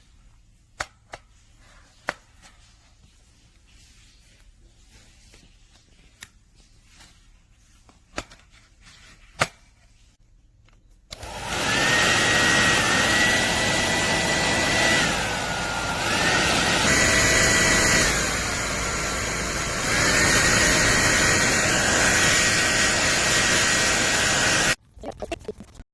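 A few handling clicks, then about 11 seconds in the ANNE BETTY 1800W ionic hair dryer switches on and runs with a loud rush of air and a whining motor. Its pitch and loudness drop twice and come back, as the speed setting is changed, and it cuts off abruptly near the end.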